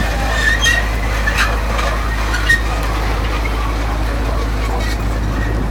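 Steady low engine drone of airport ramp equipment such as the belt loader, with a few short clicks and squeaks in the first two and a half seconds.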